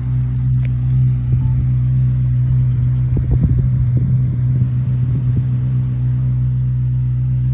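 Ferrari 458's V8 idling steadily with a low, even hum, and some uneven rumbling about three to five seconds in.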